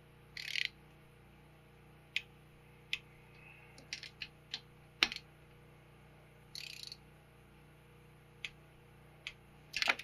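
Ratchet-head torque wrench and socket extension tightening power valve housing bolts to 96 inch-pounds: short ratcheting runs, near the start and about seven seconds in, between scattered sharp metal clicks, the loudest about five seconds in.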